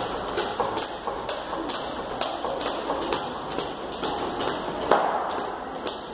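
Heavy battle ropes slapping a tiled floor as they are whipped in waves, in a steady rhythm of about three slaps a second, with one louder slap about five seconds in.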